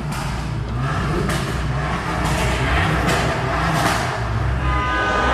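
Car engines running in a ferry's enclosed car deck, a steady low rumble whose pitch rises and falls a little, with a few hissy swells.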